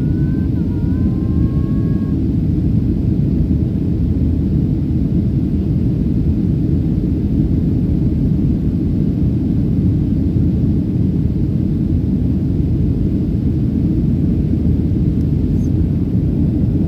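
Steady low rumble of jet engine and air noise heard from inside the cabin of a Boeing 737 airliner in flight.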